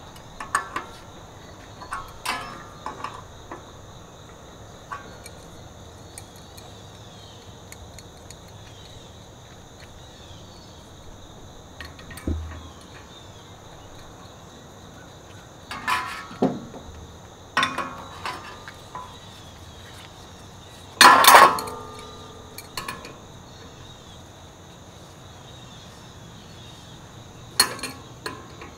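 Scattered metallic clinks and clanks of a wrench working the screw of a puller as it draws an HVAC condenser fan blade off the motor shaft, the loudest a ringing clank about two-thirds of the way through. A steady high drone of insects runs underneath.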